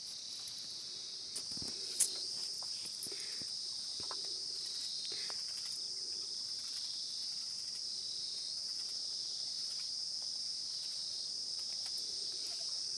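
Steady high-pitched chorus of night insects, with faint scattered clicks and rustles of taro leaves and stalks being cut by hand into a steel bowl, and one sharper click about two seconds in.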